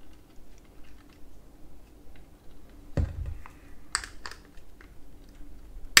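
Light clicks and taps of small plastic and metal parts being handled and fitted together on a robot vacuum's wheel assembly. A duller knock comes about three seconds in, followed a second later by a few sharper clicks.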